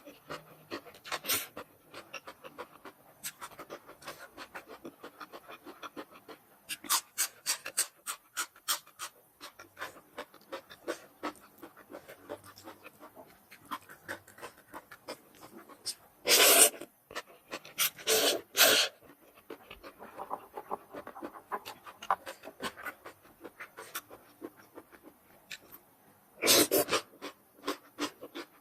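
Close-up eating sounds of rice noodles in coconut curry with chicken feet and raw vegetables: many small wet chewing clicks, with a few louder slurps about halfway through, shortly after, and near the end.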